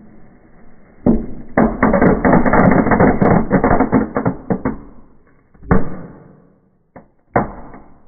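Small fireworks going off in a fireplace. A bang comes about a second in, followed by some three seconds of rapid, dense crackling pops, then a few single bangs near the end.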